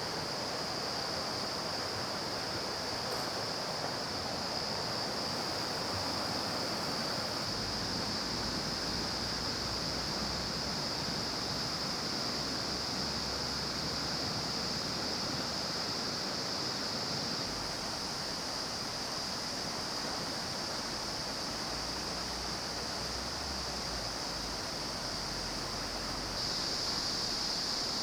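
Steady rushing water of a mountain stream and its waterfall. A steady high-pitched drone runs over it and grows louder near the end.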